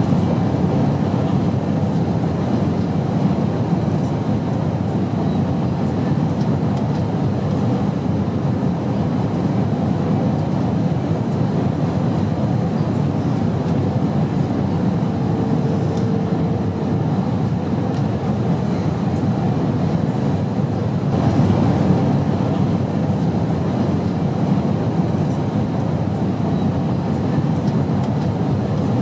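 Steady airplane noise: an even, low rumbling drone with hiss above it, swelling slightly about three-quarters of the way in.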